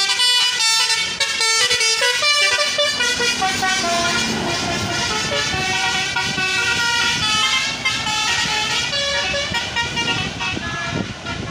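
Telolet bus horn: a set of tuned air horns playing a melody of stepped notes, with the bus's engine and road noise growing underneath about four seconds in.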